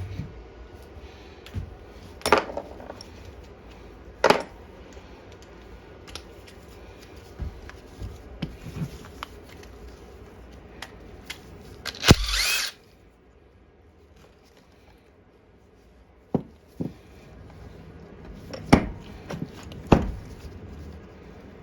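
Small hand tools and metal carburettor parts being handled and set down, giving scattered clicks and knocks, with one short burst of hissing about twelve seconds in.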